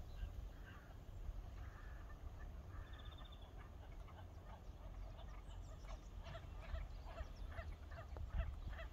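Geese honking: a run of short, repeated calls, a few a second, that starts about halfway through and goes on. A low wind rumble on the microphone lies underneath.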